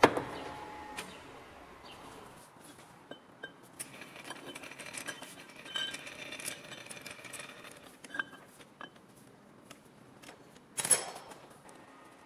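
A sharp metallic clank with a brief ring, then scattered light clinks and knocks of metal on metal, like tools and steel parts being handled, and a second loud clank about eleven seconds in. A low hum underneath dies away about two seconds in.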